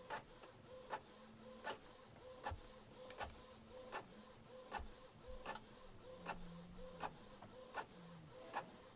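Canon Pixma MX452 inkjet printer printing a full-colour page, running faintly with a regular click about every three-quarters of a second over a low steady hum.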